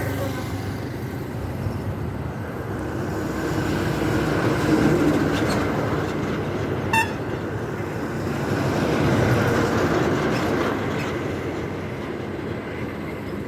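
Steady rumble of passing vehicle traffic, swelling twice as vehicles go by, with one brief sharp pitched blip about halfway through.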